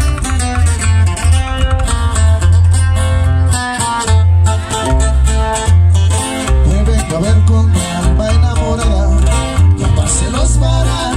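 Loud guitar-led music: plucked guitar melody over a heavy, pulsing bass line, with no words sung.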